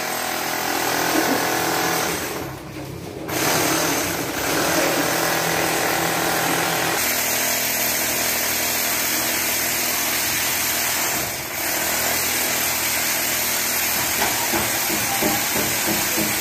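A power tool running steadily and loudly, with two brief drops in level, the first a little before the middle and the second about two-thirds of the way through.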